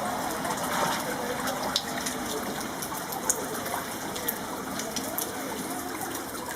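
Rain: a steady rush of running, gushing water with scattered drops ticking sharply on hard surfaces.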